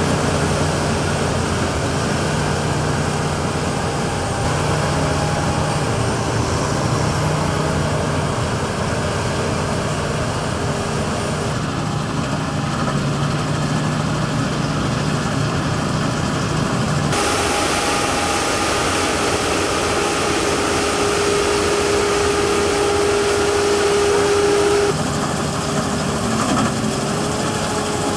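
Claas combine harvester running while harvesting grain: a steady engine and machinery drone with a few held whining tones. The mix of tones changes abruptly three times.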